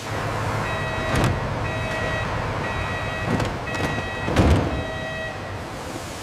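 An electronic warning beeper sounding about once a second over a steady machinery rumble, stopping about five seconds in. Three thuds land over it, the loudest about four and a half seconds in.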